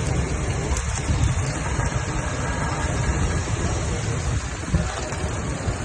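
Mini cutting torch running with a steady rushing hiss as it cuts through a steel bar.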